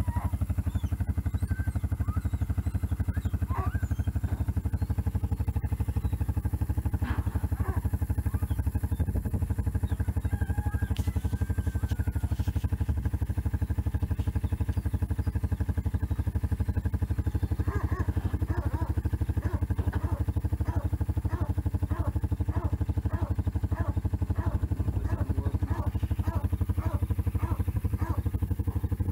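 Yamaha four-wheeler (ATV) engine idling steadily. In the second half a run of short repeated notes, about two a second, sounds over it.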